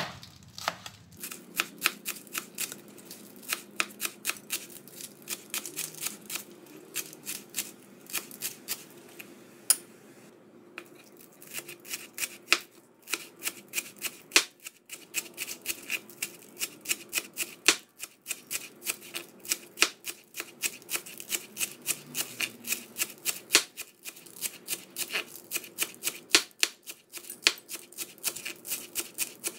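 Kitchen knife chopping spring onions on a plastic cutting board: a quick, steady run of sharp knife taps on the board, several a second, with a brief pause about ten seconds in.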